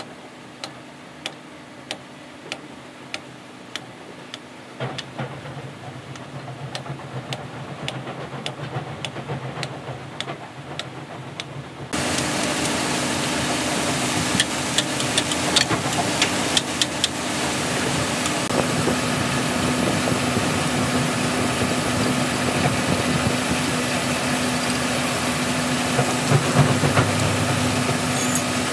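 Hammer striking a wrench on the wheel-hub bolts of a wheel loader, sharp metallic blows about one to two a second, over a steady engine idling. About twelve seconds in the sound jumps to a louder steady engine run with hiss and a few metallic clanks.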